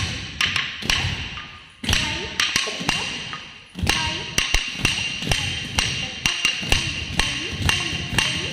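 Bare feet of a group of Bharatanatyam dancers stamping on a stone floor in the tatta adavu steps: a rapid run of sharp slaps and thuds in rhythm, with two short breaks in the beat.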